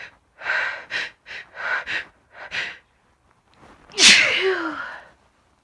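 A woman's sneezing fit: a run of short, sharp, noisy breaths, then about four seconds in one loud sneeze whose cry falls in pitch and trails off. The fit was set off by snuffing chhinkni sneezing powder.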